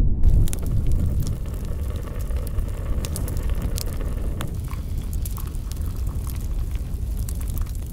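Wood campfire crackling: scattered sharp pops and ticks over a steady low rumble.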